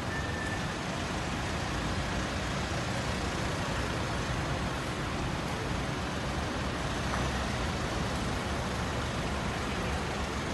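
Steady running of pickup-truck engines and tyre noise as the vehicles pull out slowly past at close range.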